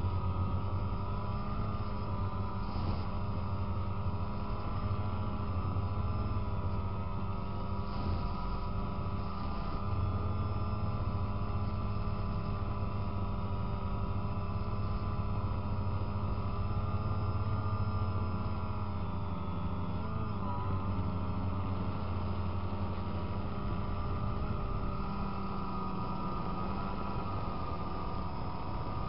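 DJI Phantom quadcopter's four electric motors and propellers humming steadily while it flies, the pitch wavering a little as the motors change speed to manoeuvre, with a brief wobble about twenty seconds in.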